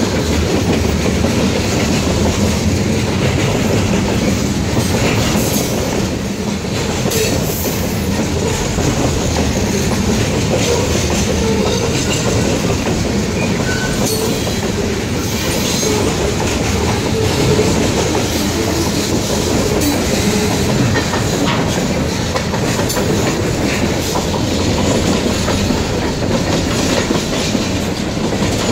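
Freight cars of a long train rolling past at close range: a steady rumble of steel wheels on the rails, with sharp clacks as the wheels cross rail joints.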